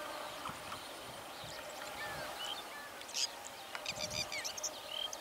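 Birds chirping, with short rising and falling calls scattered through and a busier cluster of calls about three to four seconds in, over a faint steady background.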